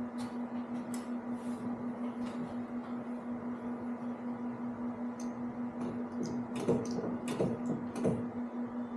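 A steady hum with a slight pulse, while hands work at a small-block Chevy 350's carburettor with scattered light clicks and rattles of metal parts, busiest in the last few seconds.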